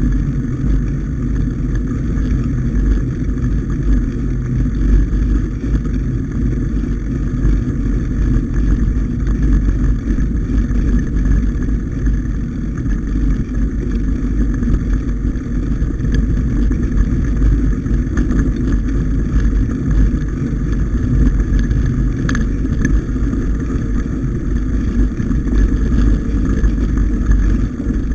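Steady low rumble of a mountain bike ride on a snow-covered dirt track: wind buffeting the bike-mounted camera's microphone over tyre and frame noise. There are a few light rattles near the end.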